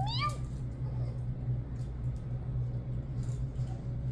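A kitten gives one short rising mew at the very start, over a steady low hum in the room; after it there are only a few faint soft taps and rustles.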